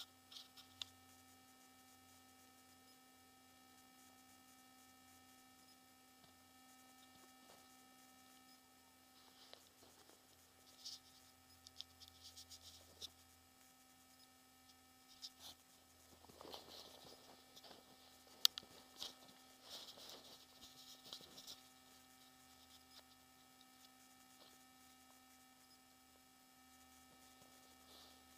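Near silence: a faint steady electronic hum, with a few faint rustles and clicks in the middle, one of them sharp.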